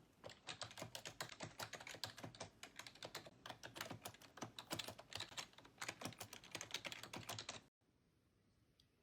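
Fast typing on a Logitech K350 wireless ergonomic keyboard, its membrane keys giving a quick, uneven run of clicks that cuts off suddenly near the end.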